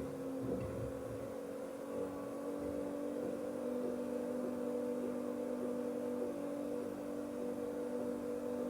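Bauknecht Super Eco 7615 washing machine's inverter motor running as the drum turns, giving a steady hum made of a few held tones. A few dull thumps come in the first couple of seconds.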